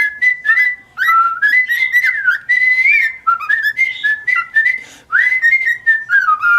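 White-faced cockatiel whistling a tune: a run of clear notes stepping up and down, ending on a longer held note.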